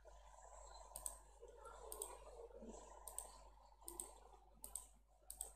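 Near silence broken by faint, sharp clicks about once a second, typical of a computer being clicked.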